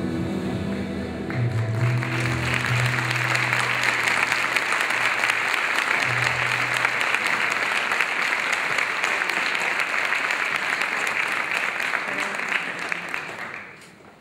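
A live band's last sustained low notes ring out while a theatre audience breaks into applause about two seconds in; the steady clapping goes on for about eleven seconds and dies away near the end.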